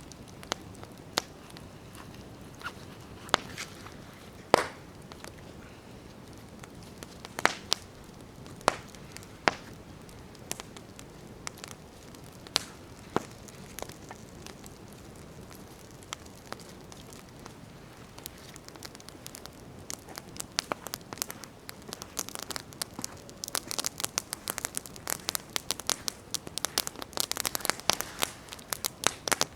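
Wood campfire crackling, with sharp separate pops and snaps every second or so, turning into a dense run of rapid crackles about two-thirds of the way through.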